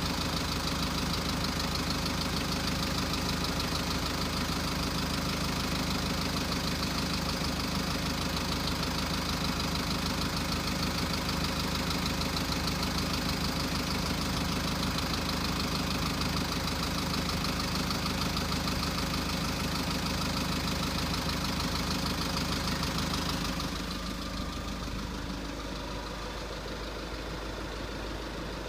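VW Passat B6's 2.0 TDI (CBAB) four-cylinder diesel idling from a cold start with a ringing knock whose cause is unknown to the owner. About 23 seconds in the sound drops a little and turns duller.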